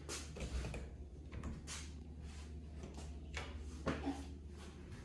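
Footsteps on a hard floor and the rustle and knock of a handheld phone being carried, as a series of irregular soft knocks over a steady low hum.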